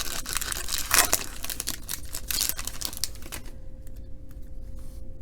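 Plastic wrapper of a jumbo pack of baseball trading cards crinkling and tearing as it is ripped open, for about three and a half seconds, then lighter clicks as the cards are handled.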